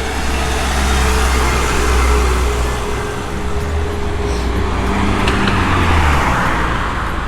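Road traffic: a motor vehicle's engine and tyre noise, a steady low rumble that swells and eases.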